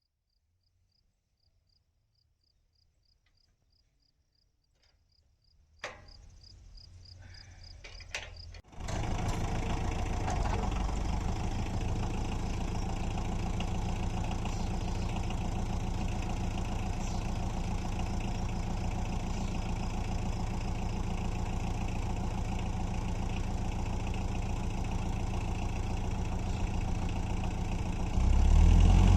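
Faint cricket chirps, then a couple of clicks, and a tractor engine starts about nine seconds in and runs steadily, getting louder near the end.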